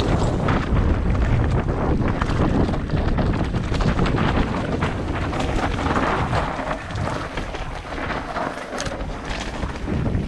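Wind buffeting the microphone of a mountain biker's camera during a ride, with the bike rattling and its tyres clattering over rocky trail in many quick clicks and knocks. The wind rumble eases a little after about seven seconds.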